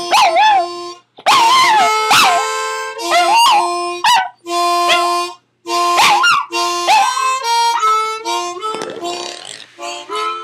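A harmonica plays held chords while a small long-haired terrier howls along, its wavering notes sliding up and down over the steady harmonica tones. The howling drops away in the last few seconds and the playing gets quieter.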